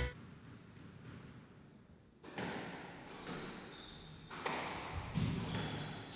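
A squash rally: the ball is struck hard about once a second, starting a couple of seconds in, each sharp crack of racket and ball off the walls ringing through the court. There are short, high squeaks of court shoes between the hits.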